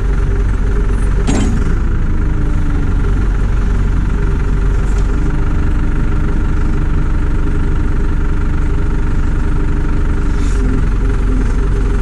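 1999 New Holland 555E backhoe loader's diesel engine running steadily while the backhoe boom and bucket are worked hydraulically. The engine tone shifts about five seconds in, and there is a single sharp knock about a second and a half in.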